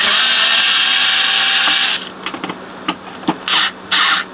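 Cordless electric screwdriver running steadily for about two seconds, backing a screw out of the amplifier's sheet-steel base. A few clicks and two short bursts of noise follow near the end.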